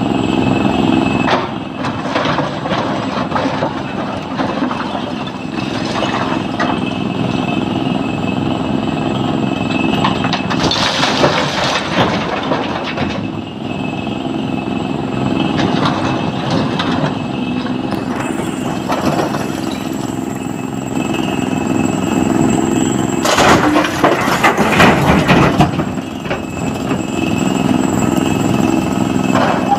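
SANY hydraulic excavator's diesel engine running steadily under load while its bucket digs through broken quarry rock. The scraping and clatter of stone gets louder twice, about a third of the way in and again toward the end.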